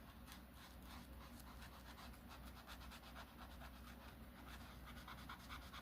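Near silence, with faint scratching of a colouring pen on paper.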